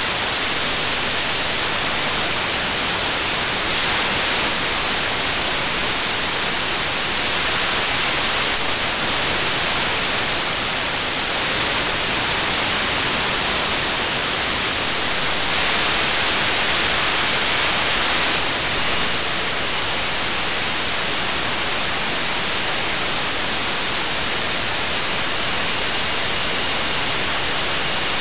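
Steady loud hiss of FM static from an RTL-SDR dongle's FM demodulator tuned across the 98 MHz broadcast band, with no station audio coming through, the receive fault the owner is asking about. Faint thin whistles come and go in the second half.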